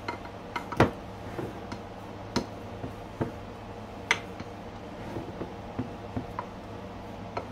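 Plastic spoon tapping and scraping against a glass baking dish while mashed potatoes are spread out in it: irregular sharp clicks and taps, the loudest about a second in.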